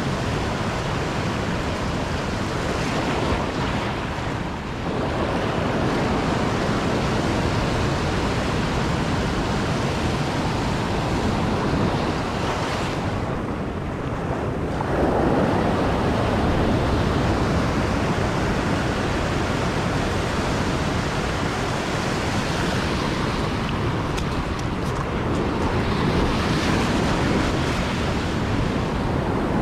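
Heavy surf breaking and washing over a rocky shore right around the microphone, a continuous rush of foaming water. It eases briefly twice and surges again about halfway through and near the end.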